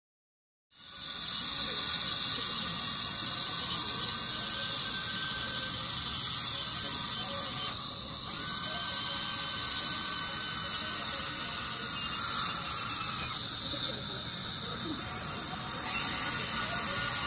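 Dental handpiece running on the teeth over a steady hiss of water spray and suction, with a thin whine that comes in about eight seconds in and again near the end: leftover bracket adhesive being ground off after braces removal.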